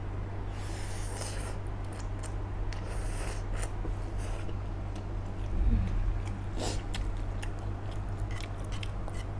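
A person slurping and chewing instant noodles close to the microphone: a hissy slurp about half a second in, then wet chewing and mouth clicks, over a steady low hum.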